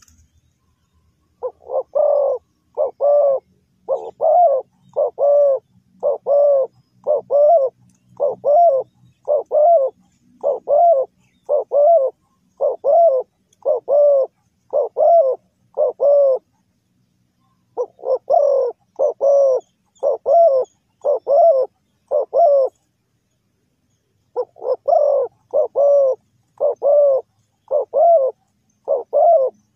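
Spotted dove cooing: a long run of repeated, arched coos, about one and a half a second, broken by two short pauses. Faint high chirps of another bird sound behind them.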